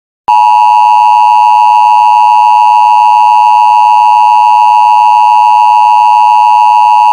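Emergency Alert System attention signal: the 853 and 960 Hz two-tone alarm, loud and steady. It begins about a third of a second in and holds without a break.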